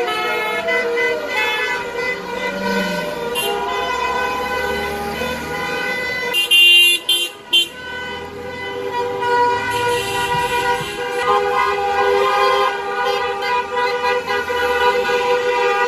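Many car horns honking together in a steady, overlapping din as a slow convoy of cars drives past: celebratory honking after a football victory. Passing engines are heard under the horns, and there is a short, very loud burst of noise about six seconds in.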